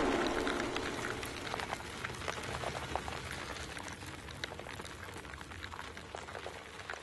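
Vinyl record surface crackle: a hiss that slowly dies away, dotted with many small irregular clicks and pops.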